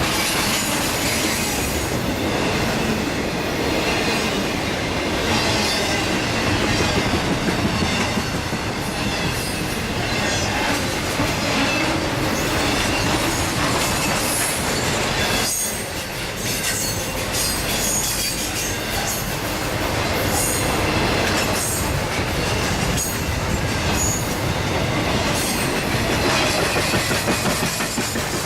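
Railroad cars rolling past steadily, with brief high-pitched wheel squeals now and then.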